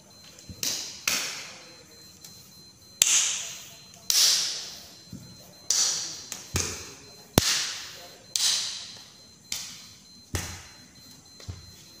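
Sharp hand slaps from silat practice, about a dozen at uneven intervals, each echoing off the hall's hard walls and floor. A few dull thuds of bare feet stamping on the tiled floor fall among them.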